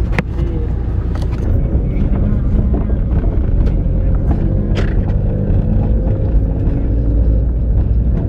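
Steady low rumble of a moving car heard from inside it: engine and road noise.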